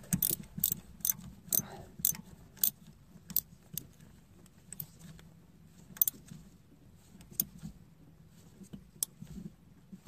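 Ratchet wrench clicking as it loosens an ignition coil hold-down bolt on the valve cover: sharp clicks about two a second for the first few seconds, then scattered single clicks.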